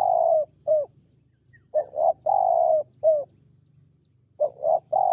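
Spotted dove cooing: a repeated phrase of two short coos, a long drawn coo and a short final coo, coming round roughly every three seconds.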